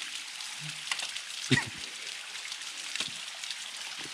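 Steady hiss of water trickling and splashing down a small cascade over sandstone, with a few sharp knocks of boots and trekking poles on the wet rock, the loudest about a third of the way in.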